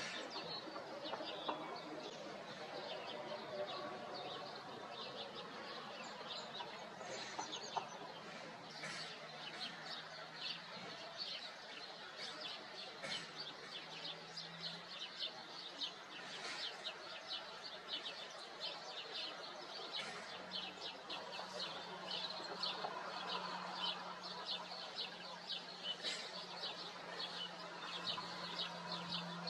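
Small birds chirping, with dense runs of short, high, rapid chirps through most of the stretch. A steady low hum joins in the second half.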